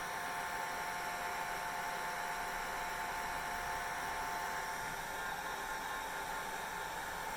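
Hair dryer running steadily: an even rush of air with a steady motor whine, part of which fades about five seconds in.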